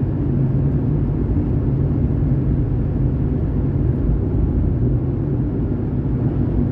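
Steady low rumble of a car being driven, road and engine noise heard inside the cabin.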